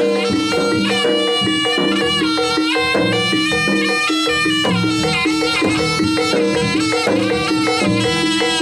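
Live jaranan (kuda lumping) music: a reedy, shawm-like slompret trumpet plays a winding, ornamented melody over drums and steadily repeated gong-chime notes.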